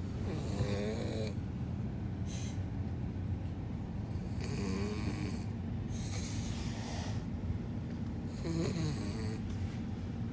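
Labrador puppy snoring loudly in its sleep, a rasping snore with each breath, about every two seconds.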